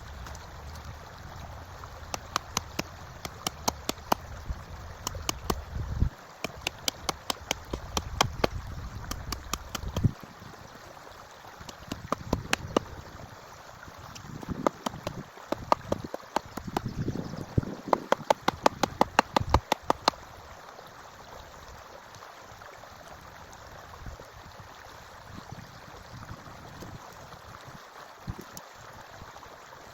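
A stream runs steadily throughout, with many sharp knocks over the first two-thirds, coming faster near the end of that stretch at about four a second, then stopping.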